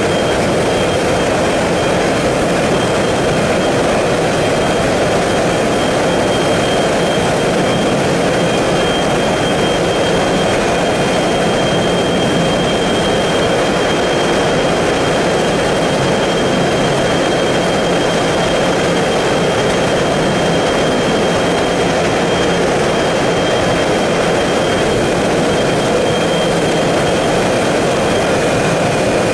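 Potato french fry production line machinery running: a steady, loud mechanical noise with a thin, constant high whine over it.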